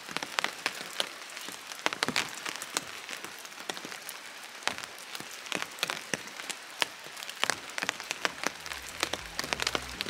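Rain falling hard, the drops landing as dense, irregular sharp taps on a surface close to the microphone. A low rumble joins in near the end.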